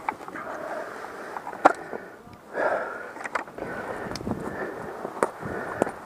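Rustling and handling noise as a rifle is set down on dry straw, with about five sharp clicks and knocks spread through it.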